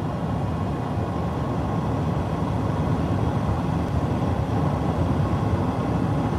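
Steady road noise inside the cabin of a moving car.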